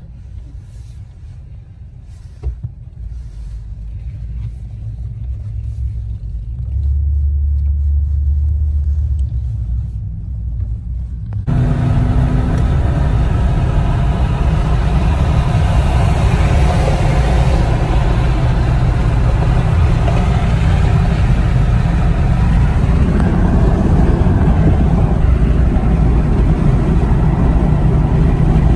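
Car road noise heard from inside the cabin: a low rumble of engine and tyres that builds as the car gathers speed. About eleven seconds in it jumps abruptly to a much louder, steady rush of road and wind noise.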